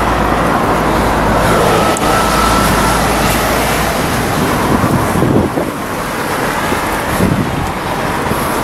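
Heavy road traffic passing close by on a busy roundabout, with wind on the microphone. The deep rumble of passing vehicles eases about four seconds in.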